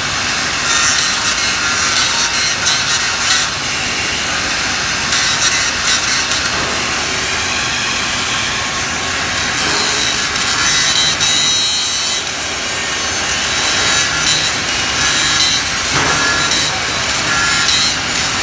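MIG (GMAW) welding arc crackling steadily as a vertical-up weld is run.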